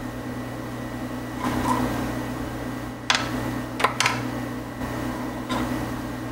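Small sharp metallic clicks as an Allen wrench and the small parts of a mill's lead screw thrust collar are handled and set down, a cluster of three around the middle, over a steady low hum.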